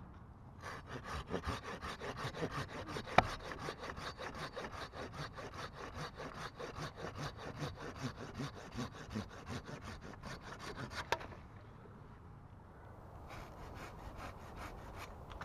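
Hand saw cutting through a green branch with quick, even back-and-forth strokes for about ten seconds, with one sharp click about three seconds in. After a short pause, a brief run of similar scraping strokes near the end.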